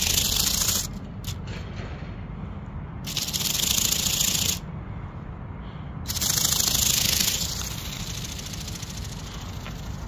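Bionic Bird X-Fly ornithopter's motor and flapping wings in three bursts of about a second each, a fast, even rattling buzz, as it tries and fails to lift off from the ground on a weak battery.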